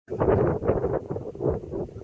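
Wind buffeting the camera microphone in uneven gusts, a loud low rumbling noise.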